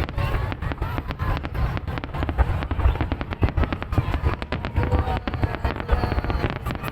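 Fireworks display going off in a dense, continuous run of sharp bangs and crackles over low booms, with no pause.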